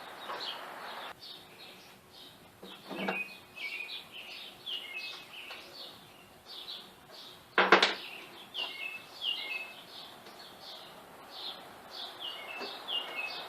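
A small bird chirping over and over in short falling notes, with a few knocks and clunks from handling band saw parts. The loudest is a sharp knock about halfway through.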